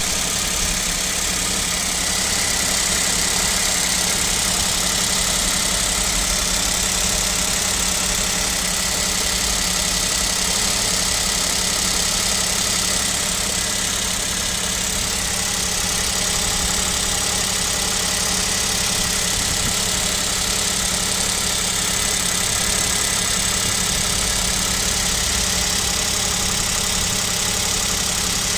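KIA Picanto's 1.0-litre G3LA three-cylinder engine running steadily at idle when cold, at about −7 °C, with a knock that the owner takes for piston-group knock and fears means an overhaul is near.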